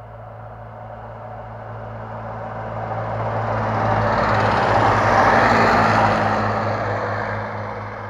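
Diesel passenger train passing close by. Its engine drone and the rumble of wheels on rail grow louder, are loudest about five seconds in, then fade as it moves away.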